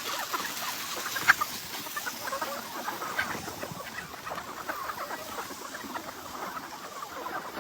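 Many short bird calls, close together, over a faint steady hiss.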